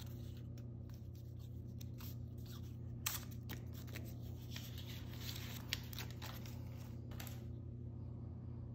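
A protective plastic wrap being peeled off a GoPro Hero 10 Black action camera by hand: quiet scratchy, crinkling peeling noises with a few sharp clicks, the sharpest about three seconds in and again near the end of the peeling. A steady low hum runs underneath.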